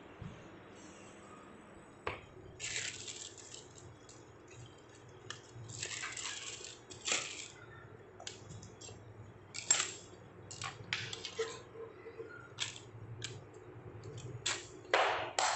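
Scissors, small parts and a plastic packet handled on a tiled floor: scattered sharp clicks and clinks with short bursts of plastic crinkling, the loudest burst near the end.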